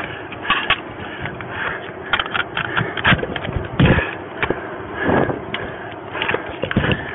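Body-worn camera knocking and rubbing against the officer's clothing and the patrol car as he moves in its doorway: a fast, irregular run of clicks and scrapes, with heavier thumps about three, four and five seconds in.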